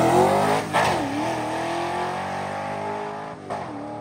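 Drag car engine at full throttle, accelerating away down the track and fading. Its pitch drops sharply at a gear shift about two-thirds of a second in and again near the end, then climbs again after each shift.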